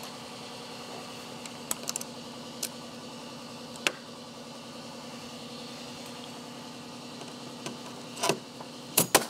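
Steady machine hum in a workshop, with small metallic clicks as blind rivets are handled, and a few louder sharp clicks near the end as a rivet gun is set to a rivet in the snowmobile tunnel.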